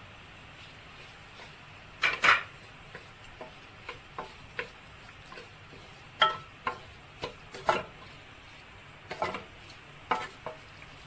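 Wooden spatula stirring mashed potatoes in a metal pan, knocking and scraping against the pan at irregular intervals, with a brief ring after each knock. The loudest are two knocks close together about two seconds in.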